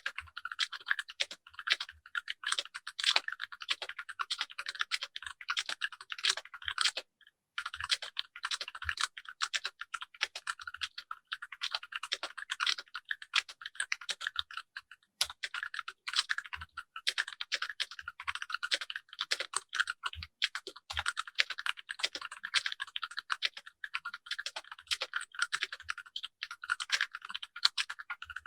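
Keychron K6 mechanical keyboard being typed on while resting on a deskmat: a fast, continuous run of key clicks with a brief pause about seven seconds in.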